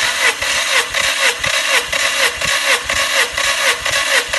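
Skoda Rapid's 1.6-litre CFNA four-cylinder petrol engine being turned over by its starter motor with the spark plugs out, a steady whirring with an even pulse. This is the cranking for a compression test of the third cylinder, which reads a healthy 15 kg/cm².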